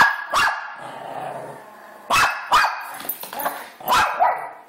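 Small dog barking at a wind-up toy dog it cannot stand. The sharp barks come mostly in pairs: a loud one at the start followed quickly by another, two more about two seconds in, and another pair near the end.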